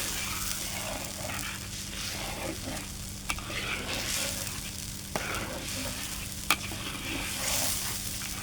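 Coconut-cream curry sauce sizzling in a pan while it is stirred, with swells of hiss as the spoon moves. Three sharp clicks of the utensil against the pan come through partway.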